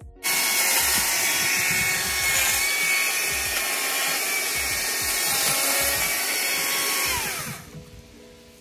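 Chainsaw running at full speed as it cuts through a fallen log, starting abruptly. Its pitch falls as the saw slows and the sound drops away about seven and a half seconds in.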